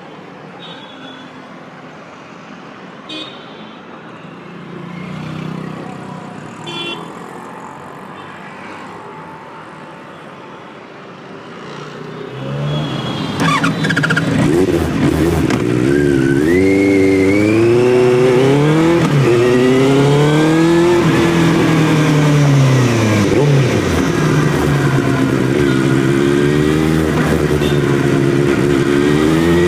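Benelli 600i inline-four with a loud exhaust, ridden in traffic. For the first dozen seconds it stays low and quiet. About twelve seconds in it opens up loudly, its pitch climbing and dropping repeatedly as it accelerates and shifts through the gears, and it is climbing again near the end.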